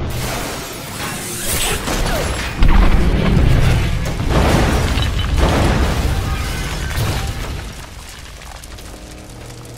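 Movie-style crash and explosion sound effects over music: a sudden loud boom about two and a half seconds in, with crashing and smashing as a toy tower crane topples, easing off to a quieter steady noise near the end.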